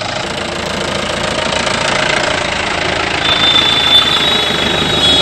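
Mahindra Bolero engine running close by with a steady, knocking clatter. A thin high tone joins about three seconds in.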